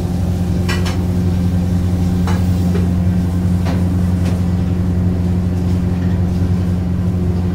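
A loud, steady low machine hum from kitchen equipment, with a few light clicks scattered through the first half.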